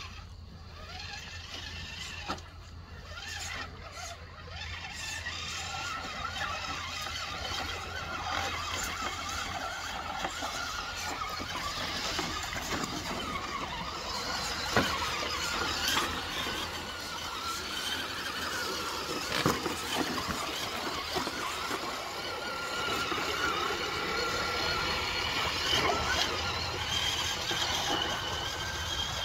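Electric motor and geared drivetrain of an RC scale crawler truck whining, the pitch rising and falling with the throttle as it crawls over creek rocks, with a few sharp knocks along the way.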